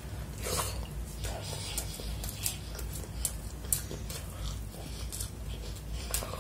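Close-up eating sounds: chewing with a string of short, wet mouth clicks and smacks, and fingers working through fried rice on a plate. A low steady hum sits underneath.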